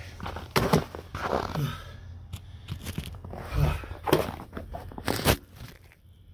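Boots crunching on packed snow close to the microphone, about five sharp separate crunches and knocks with gaps between them.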